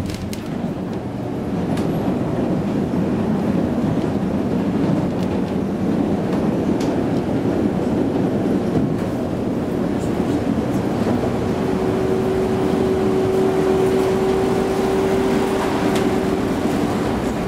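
Konstal 105N tram running along its rails, heard from inside the passenger car: a steady rumble with a few faint clicks. About two-thirds of the way through, a steady humming tone comes in and holds to the end.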